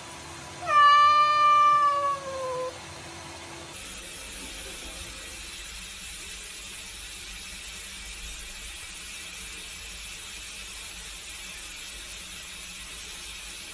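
A cat gives one long meow that falls slightly in pitch, over the steady hiss of tap water running into a sink. The water keeps running after the meow.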